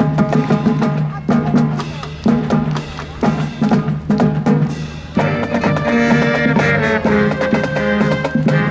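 A school marching band playing on parade: drums keep a steady beat under held chords from the winds. About five seconds in, the full brass section comes in louder.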